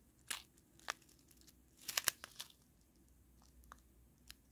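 Small clear plastic bag of round diamond-painting drills handled between the fingers: a few short, faint crinkles and clicks, with a small cluster about two seconds in.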